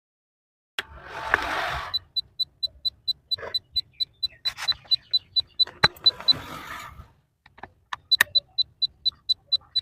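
Electronic beeper of a grain moisture meter sounding a rapid string of short high beeps, about four a second, stopping for a couple of seconds and then starting again. Clicks and rustling from handling the device come before and between the beep runs.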